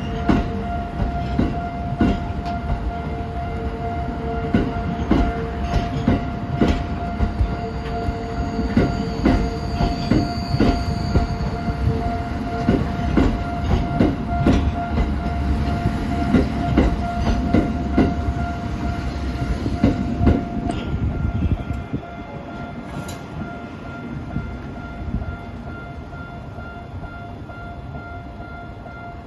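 Tokyo Metro Ginza Line train rolling slowly through the depot level crossing, a low rumble with irregular clacks of wheels over rail joints and points, while the crossing's warning alarm rings steadily. The train noise drops away about 21 seconds in and the alarm keeps ringing.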